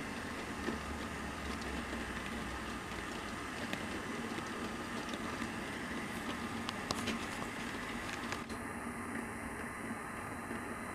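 Model trains running on the layout: a steady rumble of small wheels rolling on the rails, with scattered sharp clicks as they cross rail joints and points.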